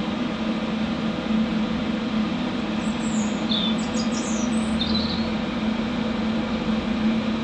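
HHO oxyhydrogen torch flame hissing steadily on a steel bar, over a constant low hum. A bird chirps a few times about three to five seconds in.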